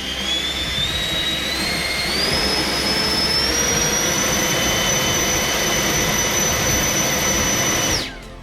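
70 mm electric ducted fan for an RC jet running on a thrust test: a high whine that climbs in pitch in several steps as the throttle is advanced, holds at full power, then cuts off sharply about eight seconds in and winds down.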